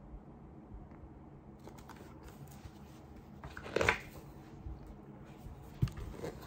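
Pages of a picture book being turned by hand: soft paper rustling, a louder swish of the page about three and a half seconds in, and a short tap near the end as the page settles.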